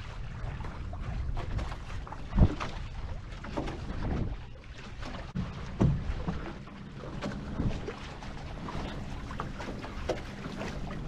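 Viper F16 sailing catamaran under way: wind buffeting the onboard microphone and water washing past the hulls. There are a few sharp knocks from the boat, the loudest about two and a half seconds in and another near six seconds.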